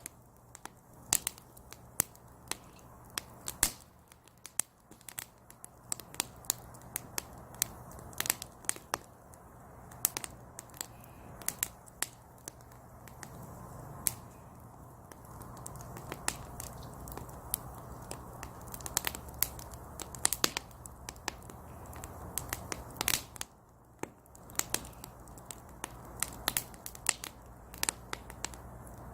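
Split firewood burning in a small brazier, crackling with sharp, irregular pops, several a second at times.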